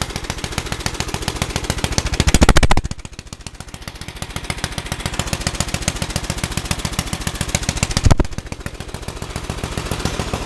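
Riding lawn mower engine running through a short, cut-down exhaust stack, a rapid, even popping. It is revved up loud twice, about two seconds in and again near eight seconds, and drops back sharply after each.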